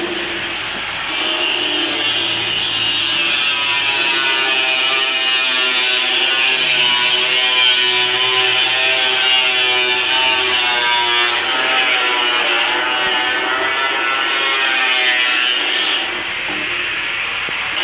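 Handheld angle grinder with a cut-off disc cutting through galvanized sheet steel: a loud, continuous grinding hiss over the motor's whine, which wavers in pitch as the disc bites into the metal.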